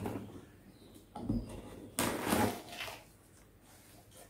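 Cardboard shipping box handled and opened: a soft knock about a second in, then a sudden scraping rustle of cardboard a little before the middle that lasts under a second.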